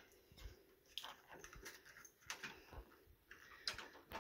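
Near silence with faint, scattered light taps and clicks from footsteps and handling of the phone as it moves across the room, with one sharper click near the end.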